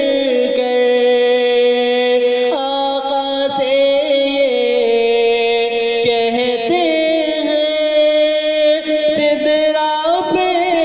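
Man singing a naat, drawing out long wordless held notes that bend slightly in pitch, over a steady lower drone held beneath.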